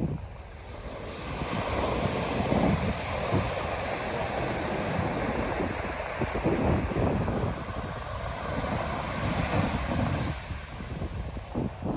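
Ocean surf washing onto the beach, its rush building about a second in and easing near the end, with wind buffeting the microphone in gusts.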